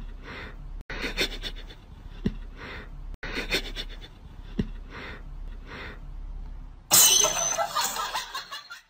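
A person's stifled, breathy laughter: soft snickers repeating about every second, with a much louder burst of laughing near the end.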